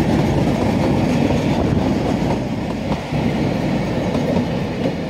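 Narrow-gauge railway passenger carriages rolling past close by, their wheels making a steady rumble on the rails.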